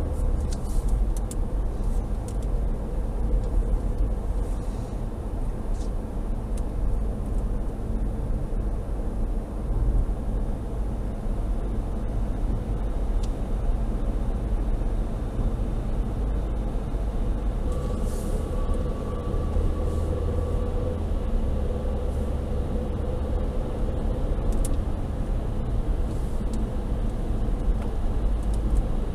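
Inside the cabin of a 2011 Opel Astra J 1.6 turbo on the move, heard through the dash cam's own microphone: a steady engine and tyre rumble.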